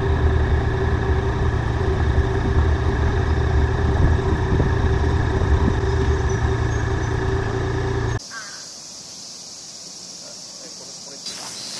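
Yamaha Niken GT leaning three-wheeler's inline three-cylinder engine running steadily under way, mixed with wind rush, heard from a camera on the bike. About eight seconds in it cuts off abruptly to a much quieter outdoor background with insects buzzing.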